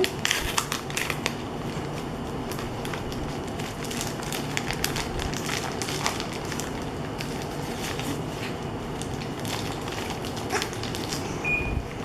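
Packaging being handled and opened: crinkling and rustling with many scattered small clicks and crackles.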